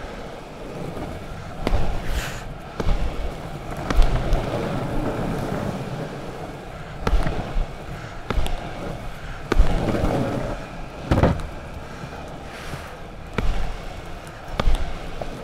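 Longboard wheels rolling on a tarmac path with a steady rumble, broken every second or two by sharp knocks and scuffs as the rider pushes off with his foot.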